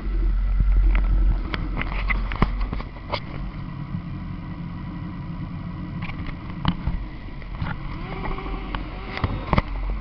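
Several motorcycle engines running at idle, with repeated knocks and rubbing from the camera being handled close to the microphone; an engine's pitch rises about eight seconds in.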